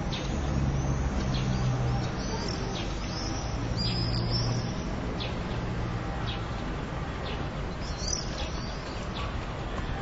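Swallows twittering, with short high chirps and swooping calls in two bouts, over the low steady hum of a car engine.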